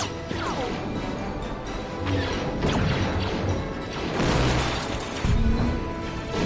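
Movie battle soundtrack: orchestral score mixed with battle sound effects. A falling whine comes about half a second in, followed by several deep booms and crashes.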